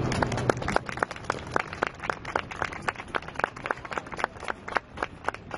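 Scattered hand clapping, many quick, irregular claps, as a harp's last notes die away in the first second.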